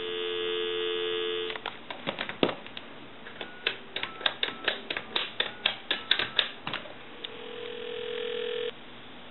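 Telephone dial tone from a Western Electric Sculptura donut phone's handset, cut off about a second and a half in when a number is keyed. Then comes a quick run of touch-tone key presses, each a click with a short DTMF beep, for about five seconds. Near the end a steady ringback tone sounds for about a second and a half as the call goes through.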